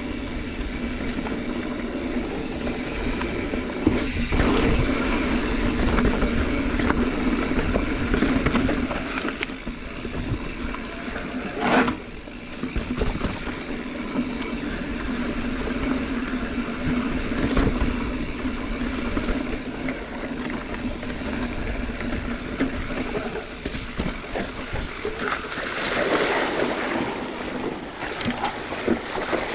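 Mountain bike riding along a trail on new tires: a steady rolling drone with low rumble, and a few sharp knocks from bumps, about 4, 12 and 28 seconds in.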